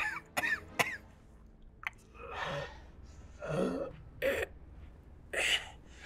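A man on the floor making ragged gasps and coughs: a few sharp catches of breath in the first second, then several heavy breaths a second or so apart.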